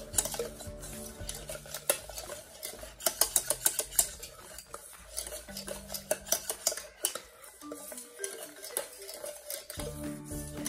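A utensil stirring and scraping inside a stainless steel saucepan of melted chocolate ganache, rapid clicks of metal against the pan in quick runs. The chocolate chips are being stirred into the hot cream until every lump melts.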